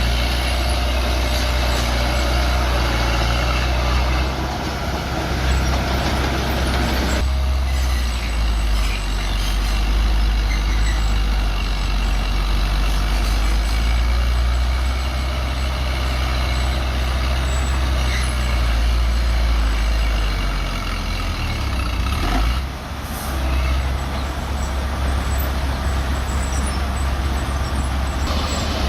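Bulldozer's diesel engine running loud and steady under work, its note shifting a few times and dipping briefly a little over 22 seconds in.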